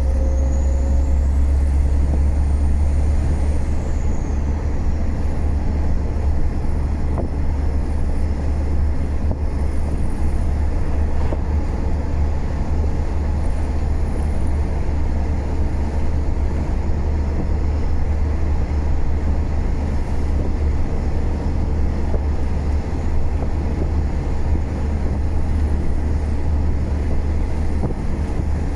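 MAN F90 26.422 truck's stock six-cylinder diesel engine running steadily under way, with a deep, even rumble. A faint high whistle rises and then falls in the first few seconds.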